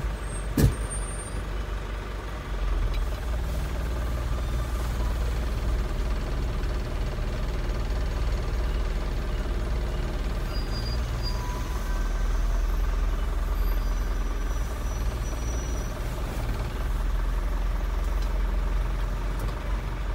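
Inside a driving-test truck's cab: the engine running and the cab rumbling as the truck drives slowly, a little louder from about two seconds in. A sharp click about half a second in.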